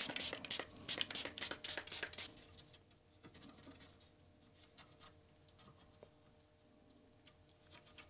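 Cotton swab wet with alcohol scrubbing across a circuit board in quick rubbing strokes, about four a second, stopping a little over two seconds in. Near silence follows, with a few faint ticks.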